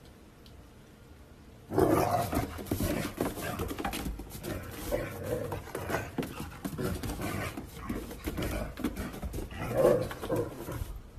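A dog vocalising while it runs and scrabbles about on a snow-dusted wooden deck, with a busy run of short knocks and scuffs from its paws. It starts about two seconds in, after a quiet opening, and is loudest near the end.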